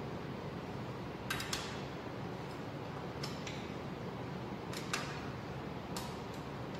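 Sharp metallic clicks in pairs, four times, from a hand wrench turning the thermostat housing bolts, over a steady background hiss.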